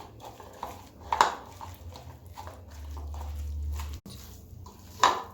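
Minced beef being mixed by hand with egg, breadcrumbs, onion and coriander in a bowl: irregular wet squelches and small clicks, with two sharp slaps, one about a second in and one near the end.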